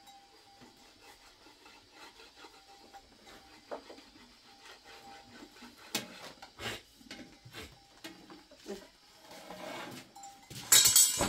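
A wooden rolling pin rubs and knocks on a wooden board as thin flatbread dough is rolled out by hand. The handling gets busier about halfway through, and there is one short, loud rasping scrape near the end.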